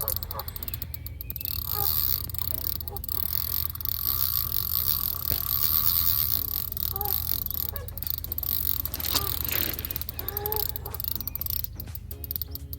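Carp reel clicking and ticking as a hooked carp is played on the rod, over a steady low rumble. Geese honk a couple of times in the background.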